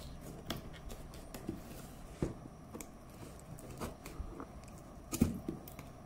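Scissors snipping and cutting through packing tape on a cardboard box, heard as a scattered series of sharp clicks, the loudest about two seconds and five seconds in. The box is hard to open because it is wrapped in tape.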